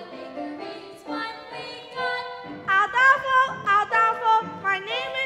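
Piano playing a show-tune accompaniment, then a solo singer comes in loudly about two and a half seconds in, holding notes with a wide vibrato.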